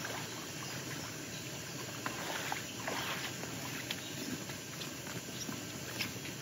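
Rustling and light, irregular crackles of footsteps through long grass and undergrowth, coming closer.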